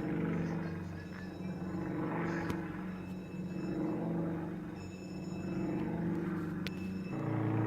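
Aircraft engine droning steadily, its tone wavering slightly and shifting near the end.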